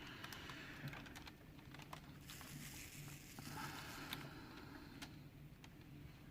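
Faint, irregular small clicks and taps of a diamond-painting drill pen picking up resin drills and pressing them onto the canvas, with a soft rustle from about two to three and a half seconds in.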